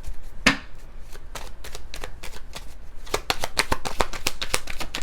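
A tarot deck being shuffled by hand: sharp card flicks and snaps, a few scattered at first, then a quick dense run through the second half.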